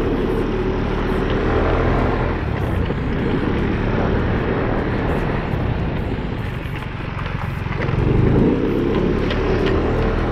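Aprilia SR 150 scooter's single-cylinder engine running as it is ridden, with wind and road noise. The engine eases off a little past halfway, then its note rises as it accelerates about eight seconds in.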